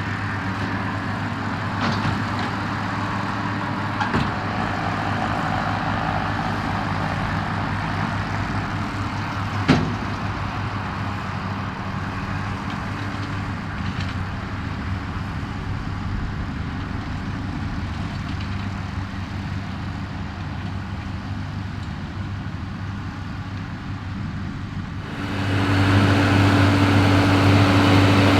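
New Holland TM155 tractor running steadily while pulling a Claas Variant 385 round baler at work, with a steady engine hum under the machinery noise. A single sharp knock sounds about ten seconds in, and near the end the engine sound suddenly grows louder and stronger.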